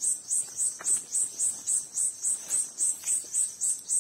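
An insect chirping in an even rhythm, about four high-pitched pulses a second, with a few faint clicks beneath it.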